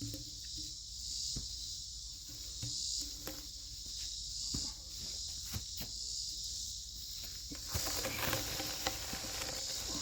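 A steady, high-pitched chorus of insects, crickets among them, with scattered light knocks and a stretch of rustling near the end.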